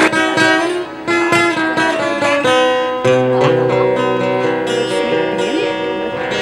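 Acoustic guitar playing an instrumental interlude between sung verses: a melody of single plucked notes, with a low bass note coming in about three seconds in.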